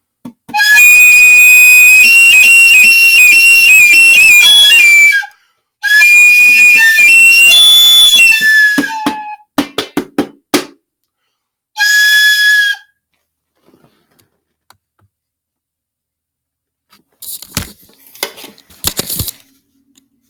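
Loud, shrill whistled notes, held and stepping up and down in pitch: two long phrases and a short third one, with a run of sharp clicks between them and a few scattered clicks and rustles near the end.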